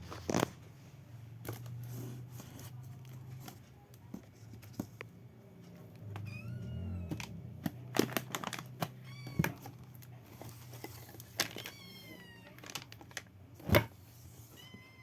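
A domestic cat meowing several times: a long meow that rises and falls about six seconds in, then shorter, falling meows around nine and twelve seconds. Sharp knocks and clicks come between them, the loudest near the end, over a steady low hum.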